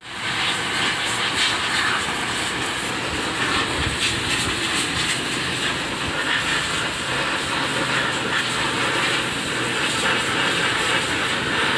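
Pressure washer spraying water onto a Honda XL 125 motorcycle engine: a steady, loud hiss and spatter of the jet hitting the engine and the concrete, with a faint motor hum underneath.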